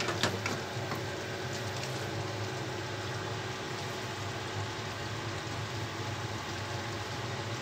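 Stovetop cooking of chicken and potatoes in a stainless wok: a steady low hum with a soft hiss. It opens with a couple of light knocks of a wooden spatula on the pan.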